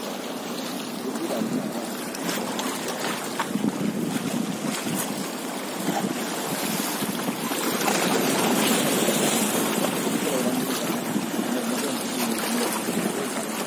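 Sea waves washing against the rocks of a breakwater, with wind buffeting the microphone; the wash swells a little louder about halfway through.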